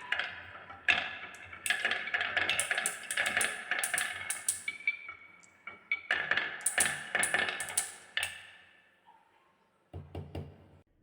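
Marbles rolling and clacking down a wooden marble run: a rapid string of clicks and ringing pings that thins out and dies away about eight seconds in, then a brief few clacks near the end.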